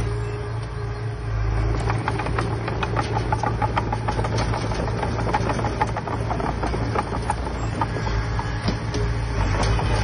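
Heavy diesel earthmoving machinery running steadily, with a dense run of clanks and rattles from about two seconds in until near the end.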